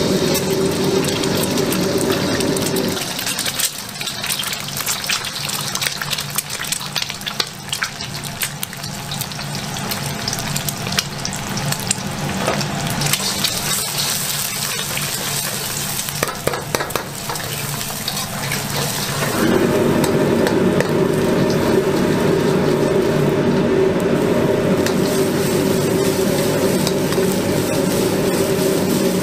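Eggs sizzling in hot oil in a carbon-steel wok while a metal wok ladle breaks and stirs them, scraping and tapping against the pan. A steady low hum underneath drops out about three seconds in and comes back about two-thirds of the way through.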